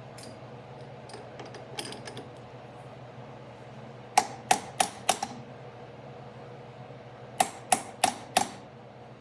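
Two sets of four sharp metallic taps, about three a second, the first set about four seconds in and the second near the end, each with a short ring, over a steady low hum.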